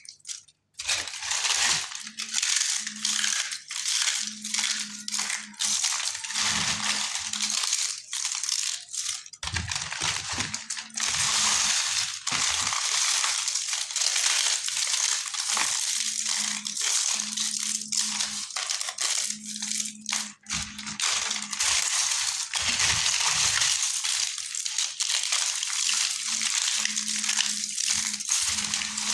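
Chunks of multani mitti (Fuller's earth clay) being crushed and crumbled, a dense, continuous crunching and crackling made of many small sharp cracks.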